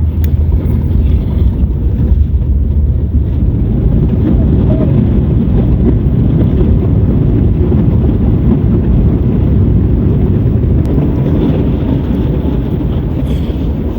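Airliner cabin noise: a loud, steady, low rumble of the engines and airflow heard from inside the plane.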